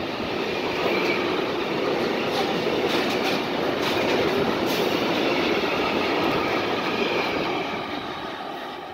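Freight train passing close by: pocket wagons loaded with semi-trailers roll past with steady wheel-and-rail noise and clicks over the rail joints. The sound fades near the end as the last wagon moves away.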